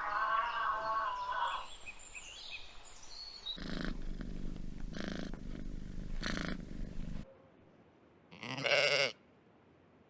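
A goat or sheep bleating, its call wavering and trembling in pitch: one call at the start and a second short one near the end. In between, a few seconds of steady low hum with short calls over it cut off abruptly.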